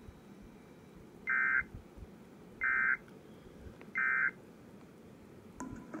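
Emergency Alert System end-of-message signal: three short bursts of SAME data tones, each a fraction of a second long and about 1.3 seconds apart, heard over a radio web stream through a laptop speaker. They mark the end of the severe thunderstorm warning broadcast.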